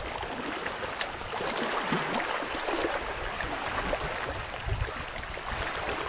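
Steady wash of sea water, with wind, and a few faint ticks.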